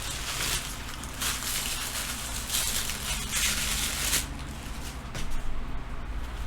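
Clothing and its packaging rustling and crinkling in several bursts as they are handled, then quieter for the last couple of seconds with a few small knocks.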